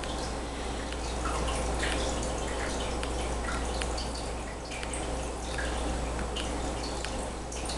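Steady low mains hum and hiss from a powered-up Panasonic SA-HT700 amplifier board and its speakers idling with no music playing, with scattered faint light ticks.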